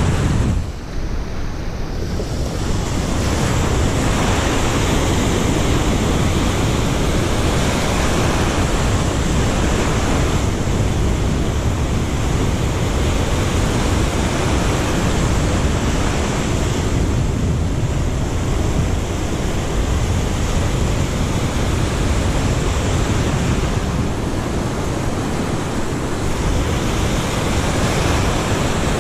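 Ocean surf breaking and washing over shoreline rocks right at the water's edge: a loud, continuous rush of water that swells and eases as the waves come in.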